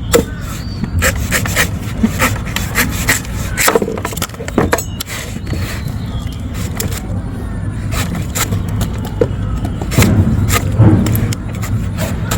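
Knife chopping and shaving the husk of a fresh young green coconut: a run of sharp, irregular cuts and scrapes, with a steady low rumble underneath.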